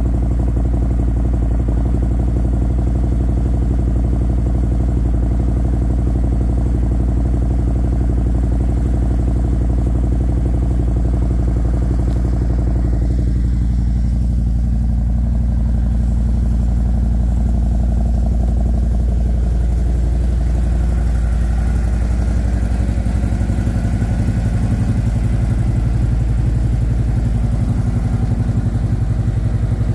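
Harley-Davidson Milwaukee-Eight 114 V-twin with a Stage II torque cam idling steadily through Khrome Werks 4.5-inch mufflers, warming up after a cold start.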